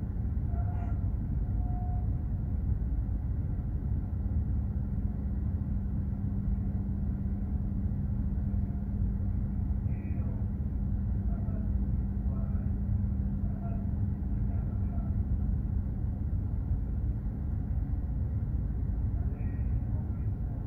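Steady low rumble of a container ship under way at sea, its engine and machinery noise mixed with wind, with a low steady hum running through most of it.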